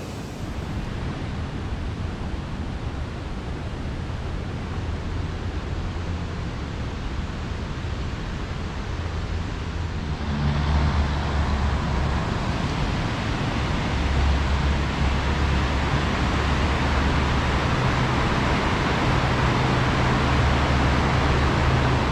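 A fast river running high with spring run-off: a steady roar of rushing whitewater that grows louder about halfway through.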